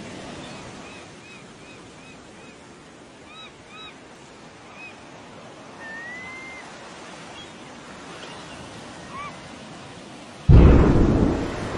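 Steady surf and wind noise with scattered short bird-like chirps and one rising whistle. About ten and a half seconds in, a sudden loud low boom from the underwater atomic blast breaks in and slowly dies away.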